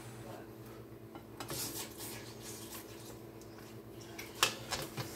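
Spatula scraping and tapping against a frying pan as a grilled cheese sandwich cooks, with a sharp clink about four seconds in, over a low steady hum.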